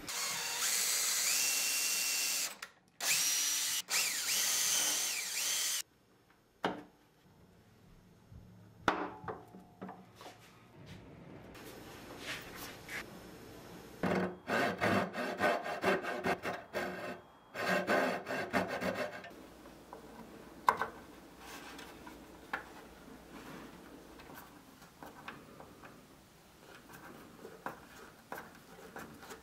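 A CNC router spindle milling into a wooden board for about six seconds, with a short break near the middle. Later, a coping saw cuts through the wood in quick back-and-forth strokes for about five seconds. After that comes quieter rubbing and scraping as a small screwdriver drives screws into a brass fitting.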